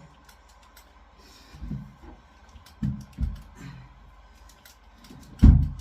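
Soft low thumps and light clicks of a person moving about while exercising, with one much louder thump near the end.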